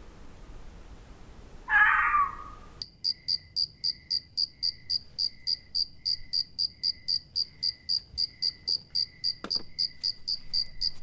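A cat meows once, then crickets chirp steadily, about three to four high chirps a second, with a slower, lower chirp running alongside.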